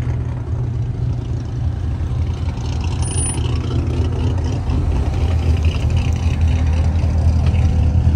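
Corvette V8 engines idling and rolling slowly as a line of cars pulls in. The low rumble swells a little over the last few seconds as the cars come closer.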